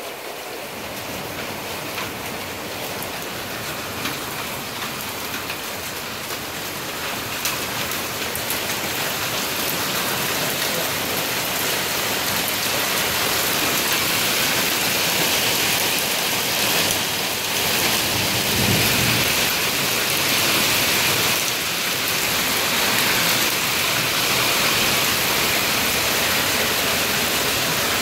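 Heavy rain mixed with hail pelting down, growing steadily louder, with a few sharp ticks early on and a short low rumble of thunder about two-thirds of the way through.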